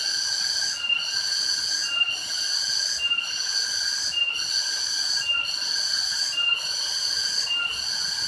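Cicadas singing in a loud, shrill chorus that breaks off and starts again about once a second, with short clipped tones between the pulses.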